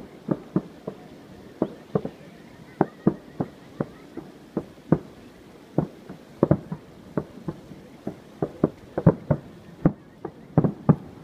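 Aerial fireworks shells bursting in an irregular series of sharp bangs, often two or three a second.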